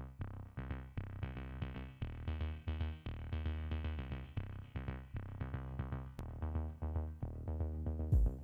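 Background electronic music with a steady drum-machine beat and synthesizer notes. A short thump comes near the end.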